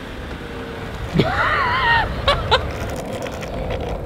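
Longboard wheels rolling over asphalt with a steady low rumble. About a second in, a person lets out a loud rising whoop, followed by two short, sharp chirps.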